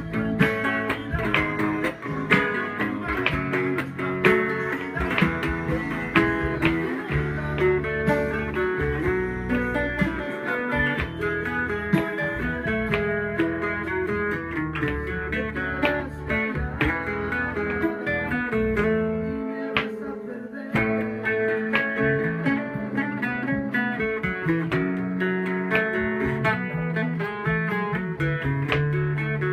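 A bajo sexto played solo, with strummed chords over plucked bass runs in a steady rhythm.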